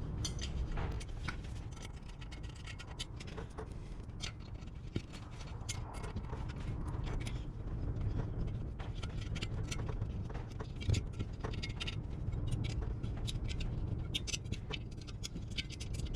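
Scattered light metal clicks and scrapes as the cleaned burn chamber of a Chinese 12 V diesel heater is handled and seated back into place, over a low steady background hum.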